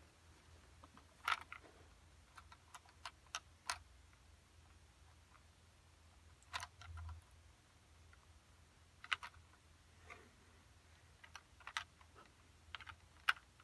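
Small plastic toy pieces clicking and tapping as they are handled. The light clicks come irregularly in small clusters, over a faint steady low hum.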